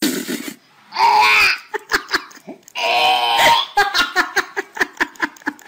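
A person laughing: a few longer laughs, then a run of short rapid bursts in the second half.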